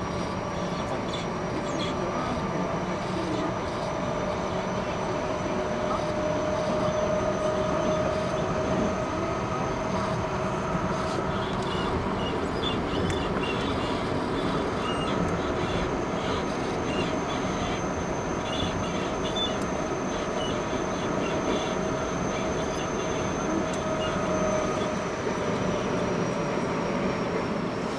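Eidan 05 series subway train heard from inside the car while running between stations: a steady rumble of wheels on rail with a thin whine held over it and scattered light clicks in the second half.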